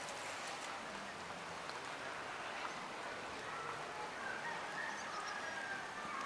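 Steady outdoor background hiss with no distinct events, and a few faint high chirps around four to five seconds in.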